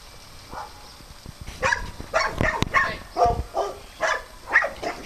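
A small dog barking repeatedly in short, sharp barks, about two a second, starting about a second and a half in, with a faint bark just before.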